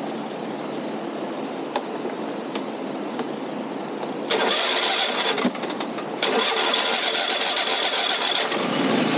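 Riding lawn mower engine running, with two louder stretches, one starting about four seconds in and a longer one about six seconds in.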